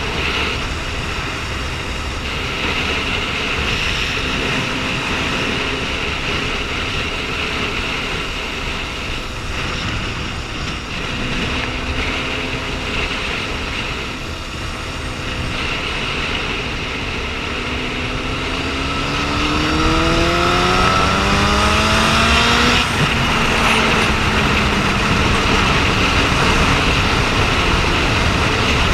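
Liter-class motorcycle engine running on the road under a steady rush of wind noise. About two-thirds of the way through, the engine pitch climbs steadily as it accelerates hard, then drops suddenly at a gear change and holds steady at the higher speed.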